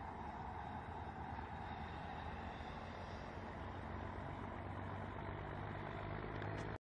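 EMD GL26MC diesel locomotive engine running steadily, heard from a distance with a low hum under a broad rumble; the sound cuts off suddenly near the end.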